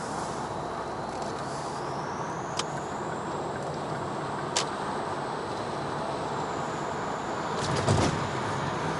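Ford S-Max 1.8 TDCi diesel cruising on the motorway, heard from inside the cabin as a steady engine and road noise. A thin high whistle rises and then holds: the turbo whistle of a turbocharger the owner calls faulty. Two sharp clicks and a louder low thump near the end.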